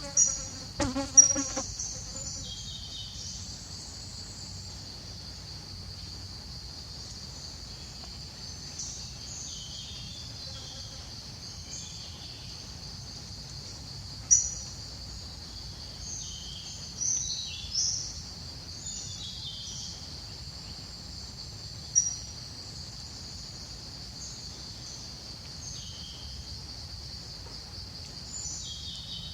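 Steady high-pitched insect trilling throughout, with scattered short high chirps over it. A brief pitched call with several harmonics comes about a second in, and a few sharp short sounds come later.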